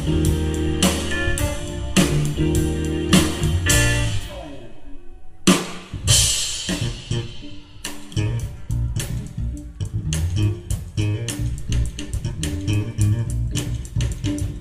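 Live instrumental funk-jazz band playing: electric guitar, bass guitar, keyboards and drum kit. The band drops out briefly about five seconds in, then comes back in.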